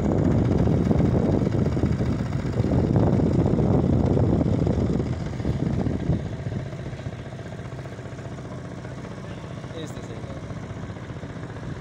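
A boat's engine running under way, then throttled back about six seconds in to a quieter, steady run.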